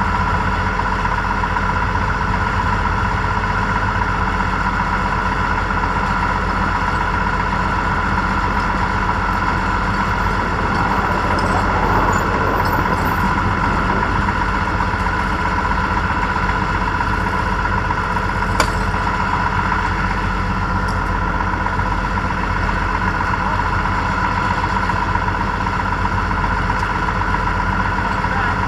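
Tractor engine running steadily at an even speed, with one sharp click about two-thirds of the way through.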